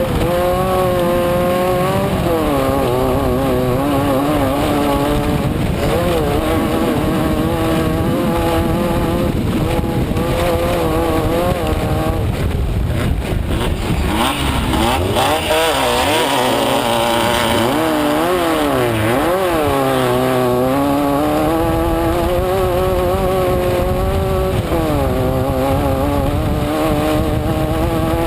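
Off-road race car's engine heard from inside the car at speed, over a constant rattling, rushing noise. Its pitch rises and falls repeatedly as the throttle is worked. Around halfway through, a stretch of louder hiss comes in while the engine dips and surges several times in quick succession.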